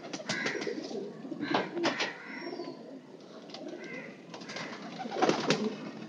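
Domestic fancy pigeons cooing, with a few sharp knocks; the loudest pair comes about five seconds in.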